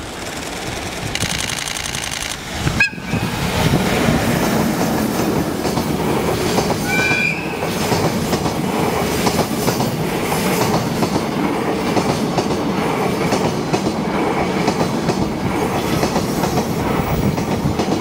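Container freight train hauled by an EF81 electric locomotive passing close by, its wagons' wheels clattering over the rail joints in a steady clickety-clack that gets louder a few seconds in. A brief high tone sounds about seven seconds in.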